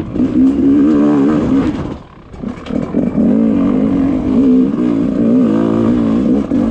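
Enduro motorcycle engine running under constantly changing throttle, its pitch rising and falling, briefly dropping away about two seconds in before picking up again.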